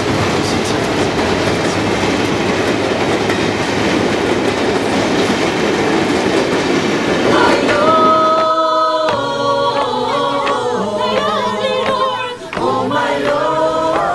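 Passenger train passing close by: a dense, steady rumble of wheels on rails for about seven seconds. It then gives way to singing voices, which carry on to the end.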